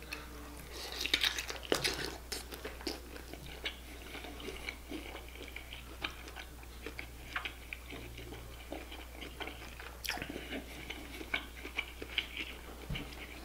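Close-miked wet chewing and biting of sauced seafood-boil food, with many short, irregular mouth clicks and smacks.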